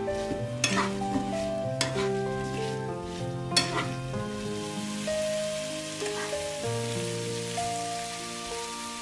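Diced apples sizzling in butter in a nonstick frying pan while a spatula stirs them, with a few sharp scrapes and taps of the spatula in the first half. Background music of slow held notes plays throughout.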